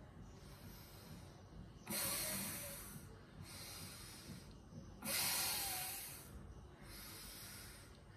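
A woman's forceful breaths out, paced with a yoga shoulder exercise: two of them, each starting sharply and fading over about a second, with fainter breathing in between.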